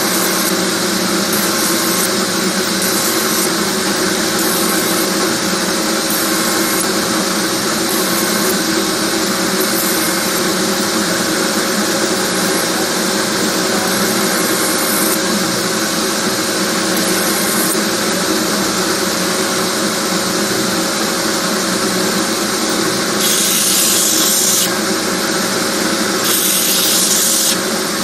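Belt grinder running, its abrasive belt grinding a steel knife blade: a steady machine hum under a continuous hiss. A harsher hiss comes in twice near the end.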